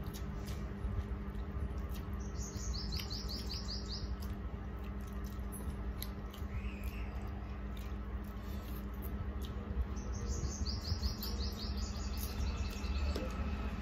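A bird calling twice, each call a quick run of short high chirps stepping down in pitch, over a steady low hum and faint clicks.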